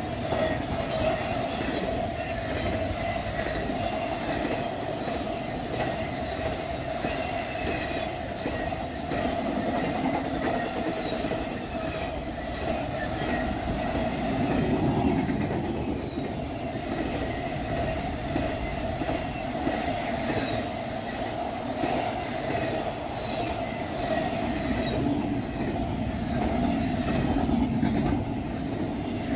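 Intermodal freight train rolling steadily past a grade crossing: continuous wheel-on-rail rumble and clatter, with a steady ringing tone from the wheels and faint repeated clicks over the rail joints.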